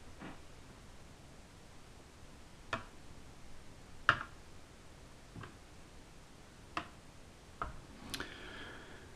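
Sparse, faint clicks of a screwdriver and small screws against the plastic underside of a Dell Inspiron 1501 laptop as the screws around its base are undone, one every second or so, the loudest about four seconds in.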